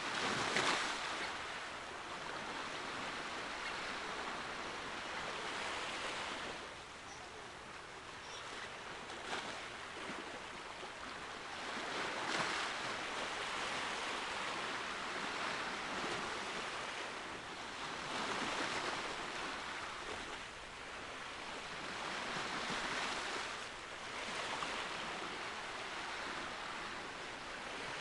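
Sea waves washing in, a rushing noise that swells and fades every five or six seconds, with wind.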